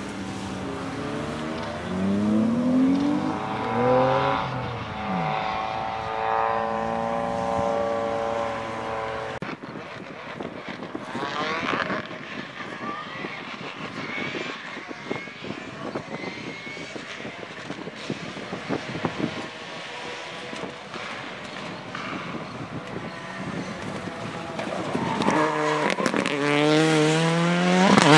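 Racing car engines at full throttle on a hill-climb course. A car revs up through its gears and goes past, its pitch climbing and falling with each shift. It fades away, a more distant car is heard faintly climbing, and near the end another car comes past close, revving up sharply.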